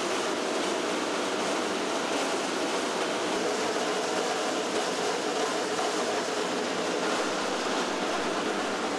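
Corn-flake production machinery running: conveyors and vibrating chutes make a steady, even rushing noise with no distinct beat.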